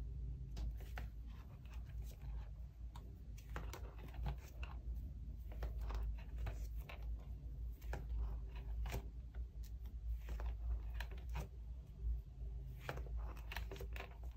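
Plastic pocket-sleeve pages in a ring binder being turned and handled, with crinkling rustles and scattered light clicks and taps, over a steady low hum.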